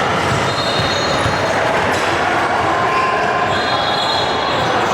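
Basketball game in a gym: a steady din of court and crowd noise, with high squeaks of sneakers on the hardwood floor about half a second in and again near the end, and the ball bouncing.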